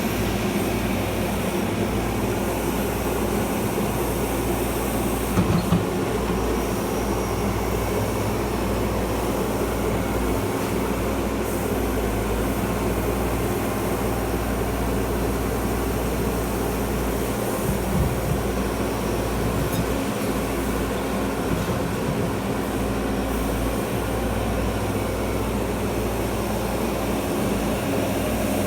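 Diesel engine and hydraulics of a Menzi Muck M220 walking excavator running steadily, with a few brief knocks about five seconds in and again around eighteen seconds.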